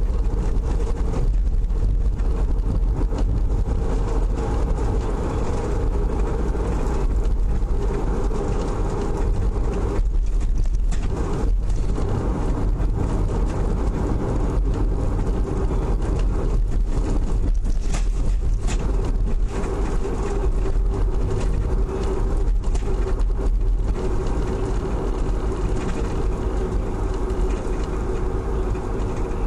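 Car being driven, heard from inside the cabin: steady engine and tyre rumble with a constant hum.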